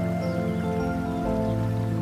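Soft instrumental background music: held, sustained notes whose chords shift every half second or so.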